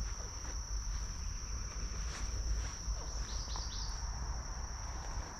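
Insects shrilling steadily in the grass on one unbroken high tone, over a low rumble. A bird gives a few quick falling chirps about three and a half seconds in.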